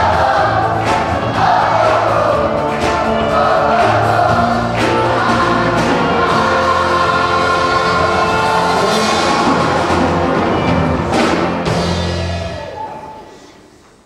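A large school choir singing with a live band of drums, guitar and keyboards, the music fading out over the last couple of seconds.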